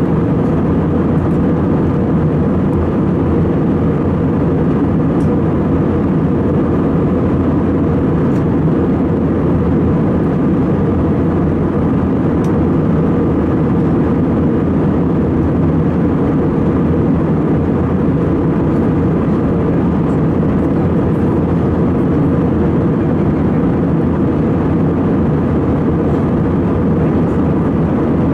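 Steady cabin noise of an Airbus A320-216 in flight, heard from a window seat over the wing: the low, even drone of its CFM56-5B engines and the airflow, with a faint steady tone in it.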